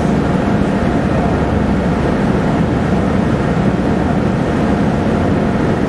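MV Mayne Queen car ferry underway: a loud, steady, deep rumble of its engines and propeller wash, with a faint steady hum above it.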